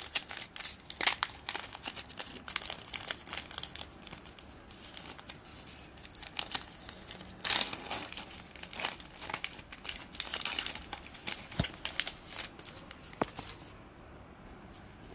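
Foil trading-card pack wrapper being torn open and crinkled by hand: a run of crackling rustles, with the loudest rip about halfway through, fading out near the end.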